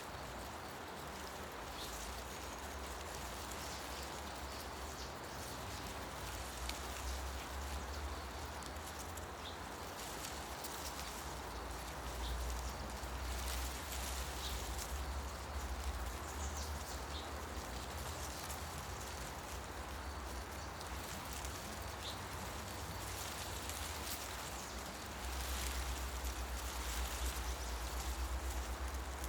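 Forest ambience: a steady rustle of leaves in the wind, with a low rumble that swells a third of the way in and again near the end, and a few faint, short bird chirps.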